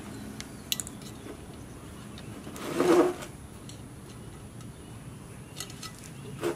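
Nylon grass-trimmer line rubbing and rustling as it is pulled off the spool and handled, with a few sharp clicks. One brief louder noise comes about halfway through.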